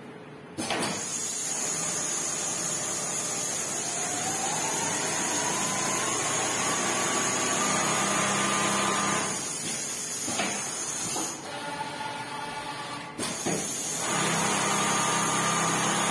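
Richpeace computer-controlled template sewing machine stitching through a PVC template. Its running starts abruptly just under a second in, with a whine that rises in pitch over the next few seconds and then holds. It drops back briefly about eleven seconds in, then a click and it runs again.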